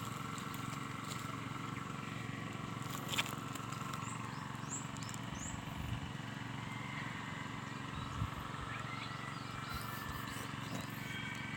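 Outdoor ambience: a steady background hum with a few faint, scattered bird chirps and a single knock about three seconds in.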